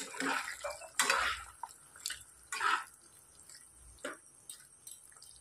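A spoon stirring chicken curry in a nonstick pan: wet squelching of the gravy and the spoon scraping and tapping against the pan in a few separate strokes, fading to light taps in the second half.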